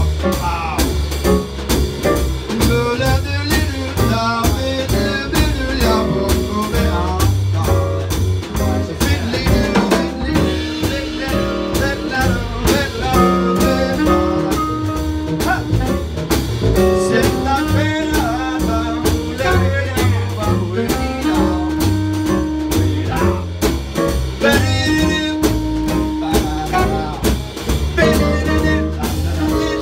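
Live jazz-blues band playing an instrumental break: acoustic piano, upright double bass, drum kit and saxophone, with long held notes over a steady beat.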